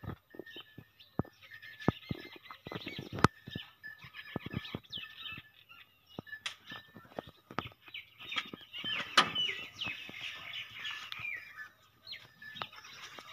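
Small birds chirping and twittering over and over, with scattered sharp clicks and knocks; one sharp click about nine seconds in is the loudest sound.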